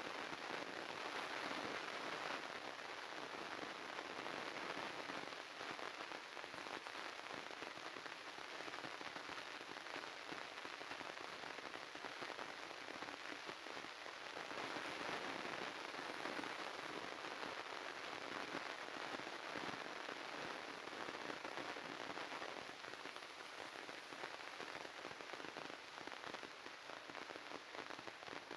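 Continuous dense crackling and popping static, a glitched, corrupted audio track that keeps an even level throughout.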